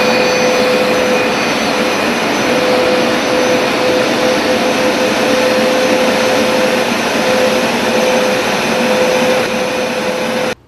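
Hoover SmartWash carpet cleaner running: its suction motor makes a loud, steady rushing noise with a steady whine, and it cuts off suddenly near the end.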